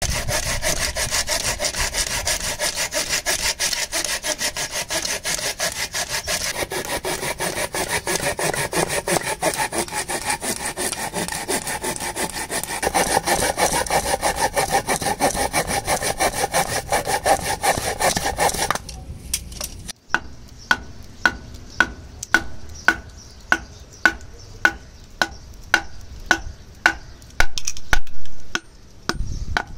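Folding pruning saw cutting through a small lapsi log in rapid, steady back-and-forth strokes. About 19 s in the sawing stops and gives way to a wooden baton striking the back of an axe head, sharp ringing knocks about two a second, driving the axe down to split the log.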